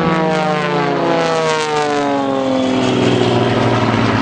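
Propeller-driven aerobatic display aircraft flying past, the drone of engine and propeller falling steadily in pitch as it goes by.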